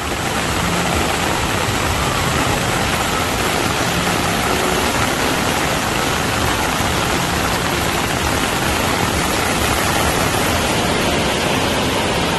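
Steady, loud rushing noise of heavy rain and fast floodwater, unbroken throughout.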